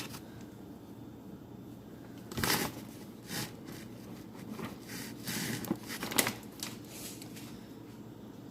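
Brief rustling and scraping handling sounds, four or five short bursts, as pieces of dry dog food are pushed into a rubber Kong toy packed with wet food.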